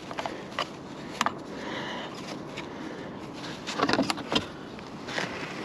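Scattered light clicks, taps and rattles of small parts being handled, with a busier run of clicks about four seconds in, over a steady background hiss.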